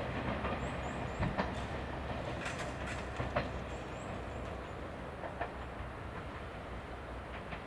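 JR Shikoku 2700 series three-car diesel multiple unit running past, with a low diesel engine rumble and scattered clicks of wheels over rail joints, slowly fading.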